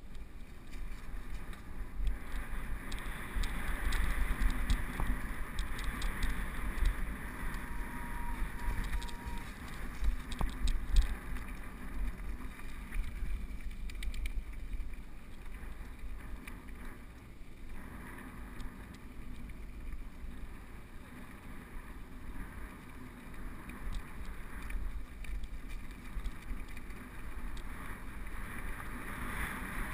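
Mountain bike descending fast over dirt and gravel: a steady rumble of wind on the camera and knobby tyres on the ground, with scattered clicks and rattles of the bike over rough patches, more of them in the first half.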